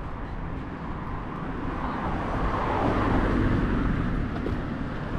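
Road traffic, with a vehicle passing close by about halfway through, growing louder and then falling in pitch as it goes.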